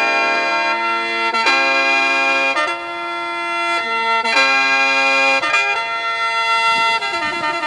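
Instrumental music of long held chords that change every second or so.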